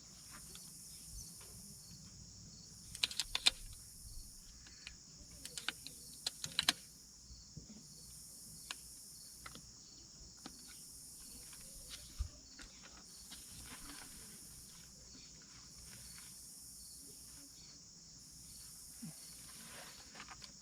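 Clusters of light clicks and taps, about three seconds in and again around six seconds, from hands working on a wood-stocked rifle while mounting its scope. Behind them insects buzz steadily, swelling about once a second.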